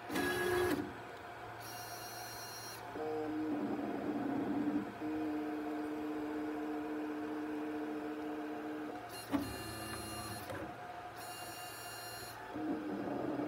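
Robox 3D printer's stepper motors whining as the bed and print head move, in steady tones held for a few seconds at a time and changing pitch with each move, over a constant fan hum. Two brief louder clatters come near the start and about halfway through.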